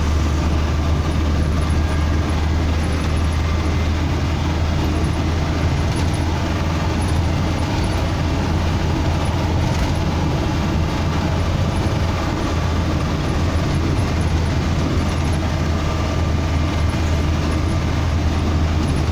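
Mercedes-Benz 710 light truck's diesel engine running steadily while the truck drives, with a constant low drone and road noise.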